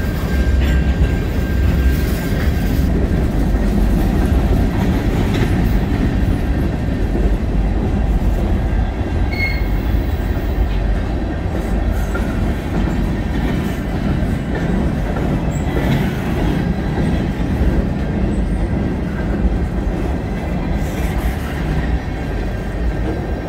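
Freight cars rolling past close by: a steady rumble of steel wheels on the rails, with faint brief wheel squeals, slowly getting a little quieter toward the end.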